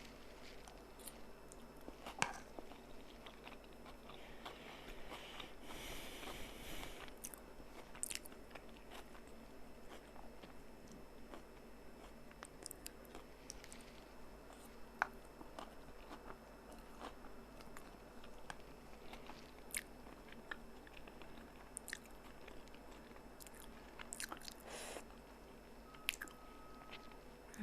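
Faint chewing of very spicy chilli noodles, with scattered brief clicks and a longer noisy stretch about five to seven seconds in.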